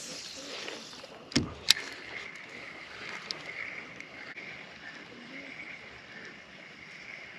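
Handling sounds in a fishing kayak on the water: a dull knock on the hull and a sharp click about a second and a half in, then a faint steady whirr over light water and wind hiss.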